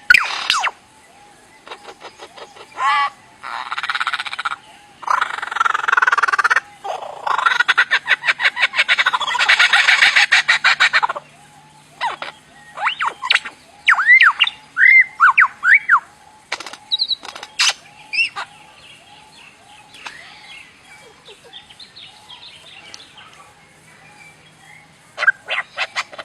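A bird giving strange, alien-like calls. It opens with bursts of rapid rattling and buzzing, then sharp whistled notes that swoop up and down, then fades into softer chatter.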